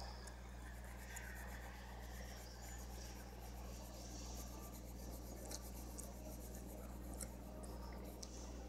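Coloured pencil scratching on paper as a page of a colouring book is filled in with continuous small strokes, with a few faint clicks, over a steady low electrical hum.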